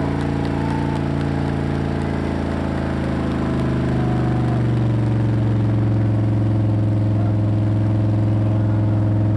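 Off-road wrecker's engine running hard under heavy load as it drags a loaded trailer up a slope in deep sand, its tires spinning and throwing sand. A steady, heavy drone that gets louder about four to five seconds in.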